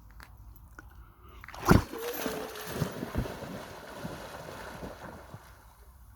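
A dog splashing into lake water: one loud splash about two seconds in, then a few seconds of water sloshing and splashing around it that dies away near the end.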